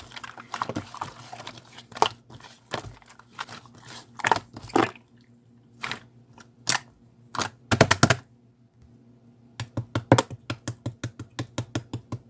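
Slime being squished and poked by hand, giving irregular wet clicks and pops, then a quick run of about five pops a second near the end.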